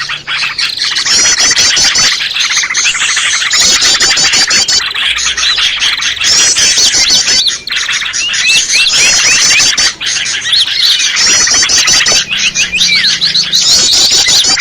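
Loud, dense mix of small songbirds chattering and chirping, with rapid high-pitched trills repeating every second or two over overlapping calls. It is a bird-lure recording that combines the calls of small birds such as prinias and bulbuls to draw them in.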